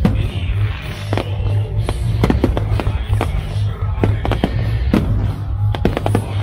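Fireworks from a musical fireworks display: many sharp bangs and crackles, some in quick clusters, over loud show music with a heavy, pulsing bass.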